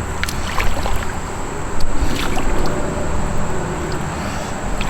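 Water lapping and trickling around a fishing kayak, with a few short sharp ticks and small splashes.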